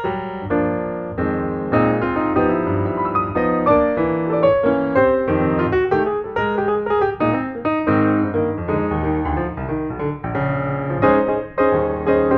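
Background piano music: a steady stream of piano notes and chords.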